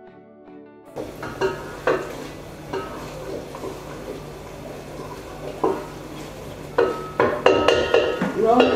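Wooden spatula stirring a bubbling onion-and-spice mixture in a stainless steel pot, scraping and knocking against the pot several times, more often near the end, over steady sizzling.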